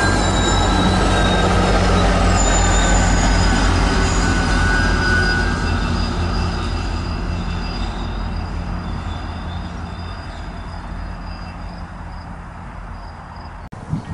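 GO Transit bilevel commuter coaches and a freight train of autorack cars rolling past on adjacent tracks: a steady low rumble of wheels on rail with high-pitched wheel squeal. The sound fades gradually as the commuter train pulls away, then cuts off abruptly near the end.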